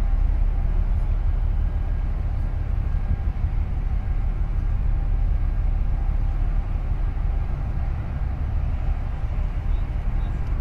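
Steady low rumble of a ship's diesel engine, with faint water hiss over it.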